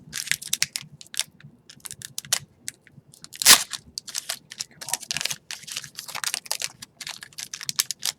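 Upper Deck hockey trading cards being handled and flicked through in the hands: a run of short, crisp paper rustles and clicks, with one sharper snap about three and a half seconds in.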